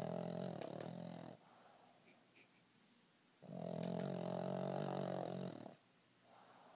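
Boston Terrier snoring in its sleep, the habitual loud snoring of this short-nosed breed. One snore trails off about a second in, and after a pause one long snore of a couple of seconds comes in the middle.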